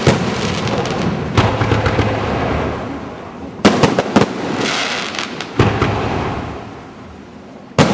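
Aerial fireworks shells bursting: a series of sharp bangs one to two seconds apart, each trailing off. A crackling burst follows a double bang near the middle.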